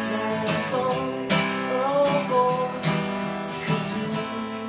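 Jumbo acoustic guitar strummed in slow chords, each strum ringing on, the strums growing gradually softer.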